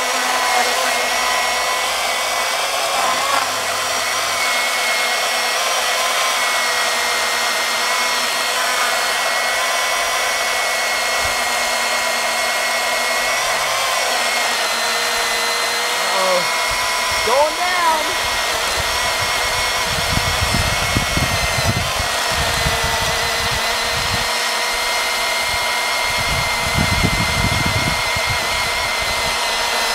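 Battery-powered Milwaukee M18 Fuel electric chainsaw running in a cut through a log, a steady high motor whine of the chain in the wood. The pitch dips briefly about halfway through as the chain is loaded, and low rumbling joins it in the last third. The battery is running down: the saw is 'getting a little tired'.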